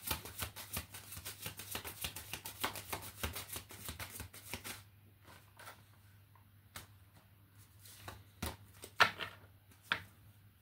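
A deck of oracle cards shuffled by hand: a rapid run of card rustling and flicking for about five seconds, then only a few single card taps and flicks.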